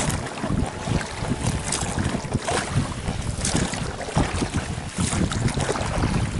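Wind gusting on the microphone over the wash of choppy sea water around a small boat, loud and uneven.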